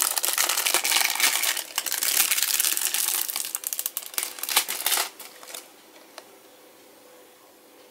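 A clear plastic sleeve crinkling as a Blu-ray case is handled and pulled from it, a dense crackle that stops about five and a half seconds in.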